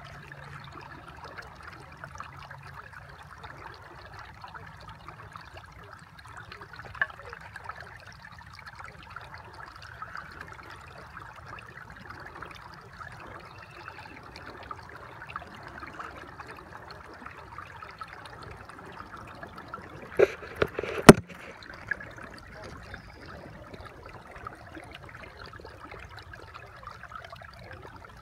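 Steady trickling water, with a short cluster of sharp knocks about twenty seconds in, the last one the loudest.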